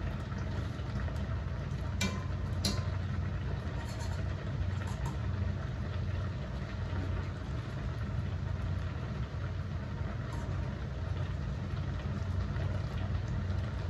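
A stainless steel pot of water boiling with japchae glass noodles in it, stirred with a wire spider strainer, over a steady low hum. Two light metal clinks come about two seconds in.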